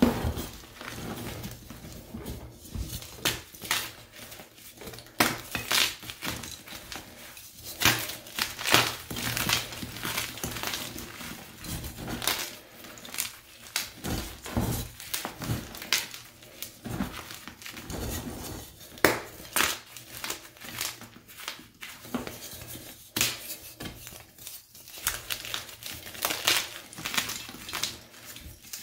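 Picsil gym chalk blocks, plain and dyed, being crushed and crumbled by hand in a box of chalk rubble: dry, irregular crunches and crackles, many in quick succession, with softer rustling of loose chalk between them.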